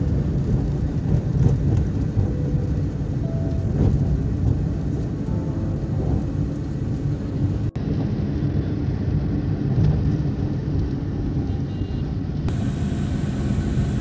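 Steady low rumble of road and engine noise from a moving vehicle in traffic, with a momentary dropout about eight seconds in.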